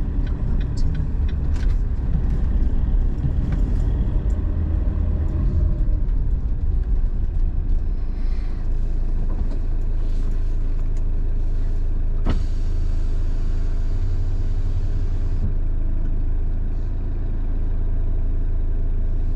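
Motorhome engine and road rumble heard from inside the cab as it drives slowly, settling to a steady idle about eight seconds in once it stops.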